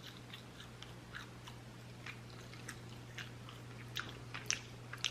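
Close-miked chewing and wet mouth clicks, irregular, with a few louder smacks about four to five seconds in, over a faint steady low hum.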